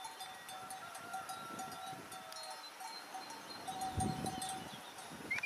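Bells worn by a flock of walking sheep clinking and ringing unevenly, with a brief low thump about four seconds in and a short high call near the end.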